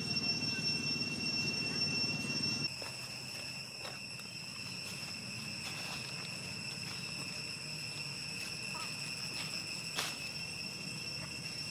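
Insects droning steadily at a high, even pitch. A low rumble underneath stops suddenly under three seconds in, and there is a single sharp click about ten seconds in.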